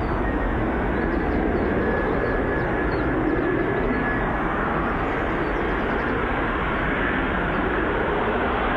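Airbus A350 airliner's jet engines, a steady, unbroken noise as the plane comes in to land, with a faint thin whine in the first half.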